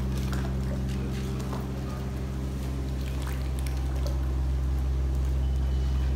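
Steady low hum of the screed pump's engine driving liquid anhydrite screed through the hose, with the screed pouring and splashing out of the hose onto the floor.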